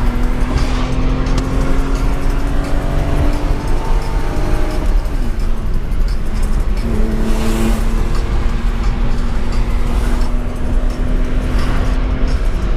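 BMW E36 engine running under load in a tunnel, its note climbing slowly in pitch through a gear. About five seconds in the pitch drops with a gear change, then it climbs again and drops once more near the end.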